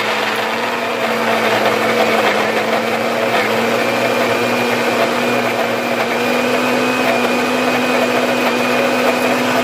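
Countertop blender running at full speed, grinding fried spice ingredients (candlenut, turmeric, ginger, galangal, shallot, garlic) into a paste: a steady, loud motor whir whose pitch creeps slightly upward.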